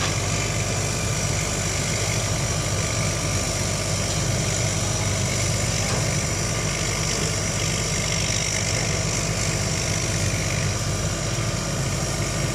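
Mobile crane's diesel engine running steadily with an even low hum during a lift.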